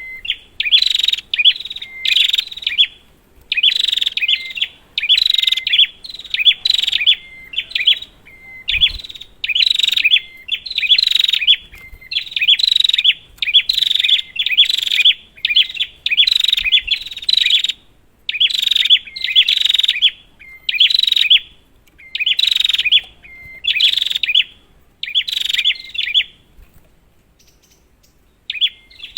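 Prenjak (prinia) singing vigorously: loud, rapid phrases of sharp chirps repeated about once or twice a second, with a pause of about two seconds near the end.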